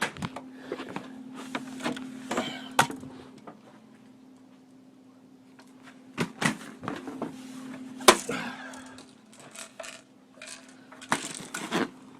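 Irregular knocks and clatter, like objects being handled and set down, over a steady low hum; the loudest knock comes about two-thirds of the way through.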